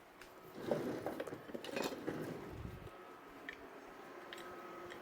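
A spoon stirring a stock-and-flour sauce in a pan, clinking and scraping against the pan for a couple of seconds, then quieter.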